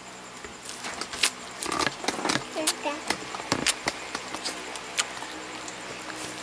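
Close-up crunching of a bite into crispy fried chicken: a quick run of sharp crackles that come thickest over the first few seconds, then thin out.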